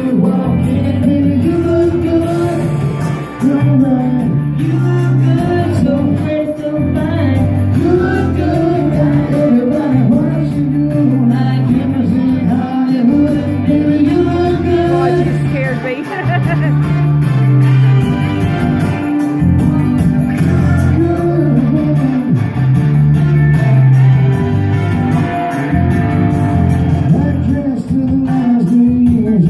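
A man singing into a microphone over amplified music, a song with a steady bass line, played through a PA in a large hall.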